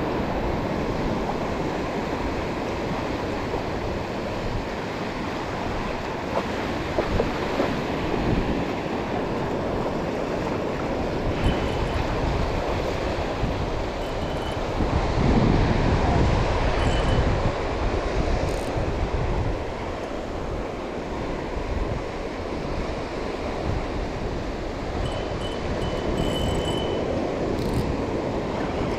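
Small surf waves washing and swirling around the legs and onto the sand, with wind rushing on the microphone; the wash swells louder for a few seconds about halfway through.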